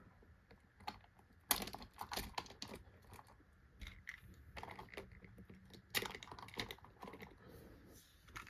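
Light plastic clicks and knocks as toy train pieces, an engine and its cargo wagon, are handled and set onto the track, coming in two short flurries.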